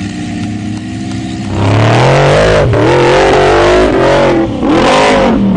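Off-road vehicle engine running, then revved hard from about a second and a half in, its pitch rising and falling over and over with brief drops between revs.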